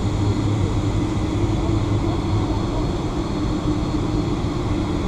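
Boeing 757-300's jet engines idling, heard inside the passenger cabin as a steady, even hum with a deeper drone beneath it.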